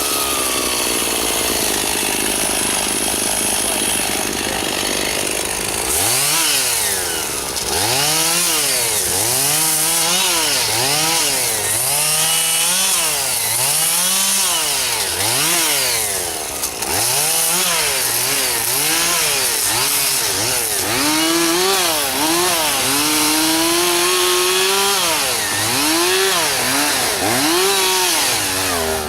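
Chainsaw running at high revs and cutting wood. After about six seconds the engine speed rises and falls about once a second as the saw loads down in the cut and picks up again.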